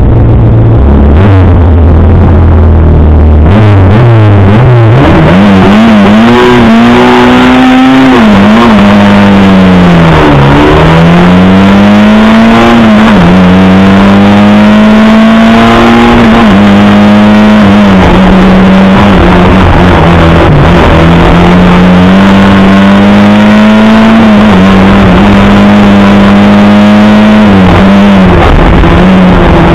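Lada 2107 rally car's inline four-cylinder engine heard loud from inside the cabin, revving hard through the gears: the pitch climbs, drops sharply at each shift and climbs again, with a long fall in revs about ten seconds in as the car slows.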